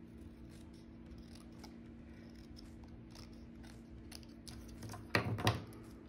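Small craft scissors cutting a paper word strip: a few faint soft clicks, then two sharp snips about five seconds in, a third of a second apart.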